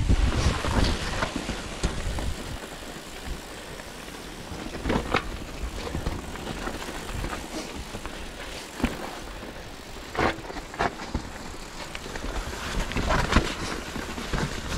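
Commencal Meta SX mountain bike rolling fast down a wet dirt trail: a steady rush of tyre noise with several sharp clatters from the chain and frame as it hits roots and rocks.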